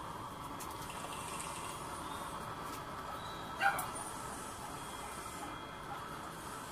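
Small 12 V snail blower running steadily on low, pushing air into a preheating waste-oil burner, a faint whine over a steady rush of air. One brief bark about three and a half seconds in.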